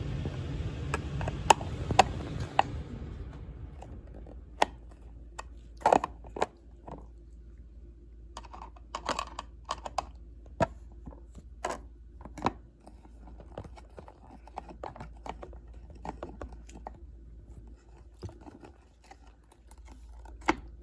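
Irregular clicks and taps of hand work on a smoke-alarm mounting plate and its screws. A steady low hum under it cuts off about two and a half seconds in.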